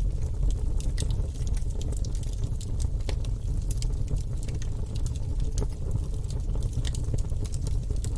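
Wood fire burning in a fireplace: a steady low rumble of flames with irregular crackles and pops from the logs, several each second.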